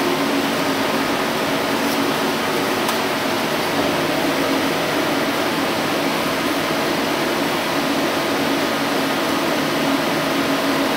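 Steady rushing noise of machinery running, with a faint low hum underneath.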